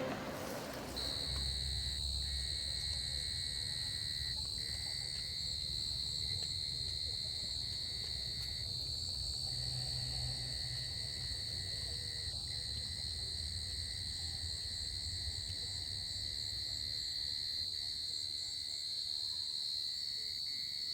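Insects, crickets or cicadas, keeping up a steady, continuous high-pitched drone that starts about a second in, over a low rumble.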